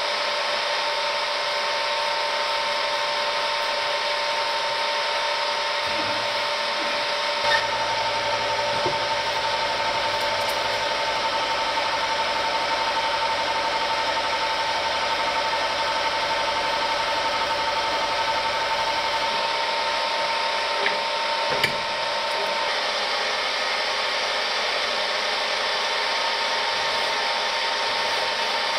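Hand file rubbing across a small metal part held in a bench vise, over a steady hum.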